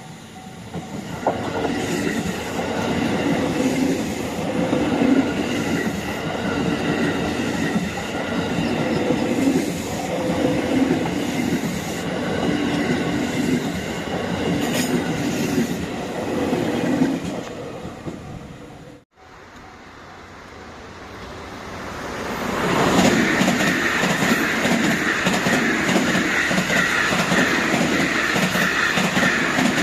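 JR Kobe Line trains passing a level crossing at speed, wheels clattering over the rail joints in a repeating rhythm. The sound cuts off abruptly about two-thirds of the way through, then a second train rushes past.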